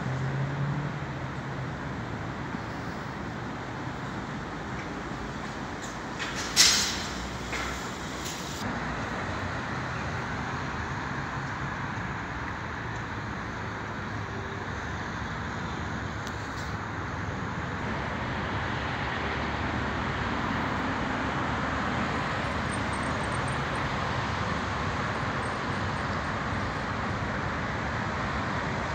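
Steady road traffic noise, with one brief loud hiss about a quarter of the way through.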